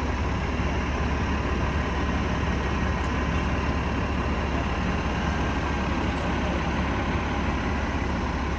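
An engine idling steadily, a low even rumble with no change in speed.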